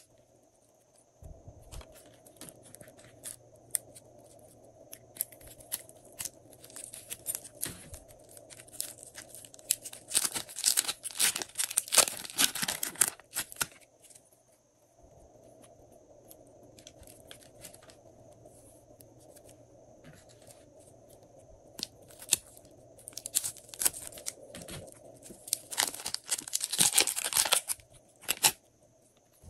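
Slime being squeezed and worked by hand in plastic piping bags: sticky crackling and plastic crinkling in irregular spells, busiest near the middle and again near the end, over a faint steady hum.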